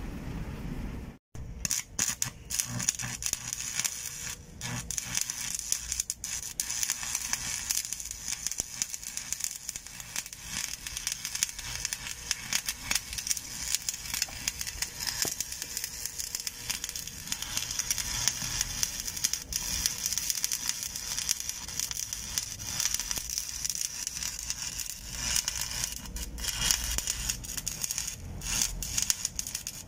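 Stick (shielded metal arc) welding on a steel pipe joint: the electrode's arc crackles and sizzles steadily with dense irregular pops, starting about a second in.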